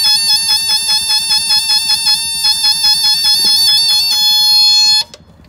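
Bobcat skid steer's electronic warning alarm beeping rapidly, about six beeps a second, then holding one steady tone for about a second before cutting off sharply. It sounds while the machine refuses to start.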